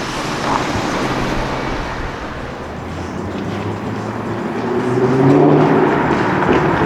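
A car engine running in street traffic, getting louder about five seconds in.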